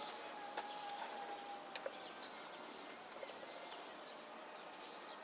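Quiet outdoor background with scattered faint bird chirps, a few sharp clicks, and a faint steady whine that fades out about two seconds in.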